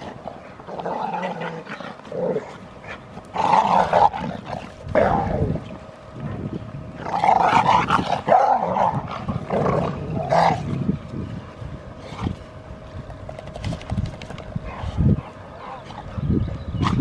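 Young American Bully dogs play-fighting, growling and barking in short, irregular bursts, loudest in the middle of the stretch.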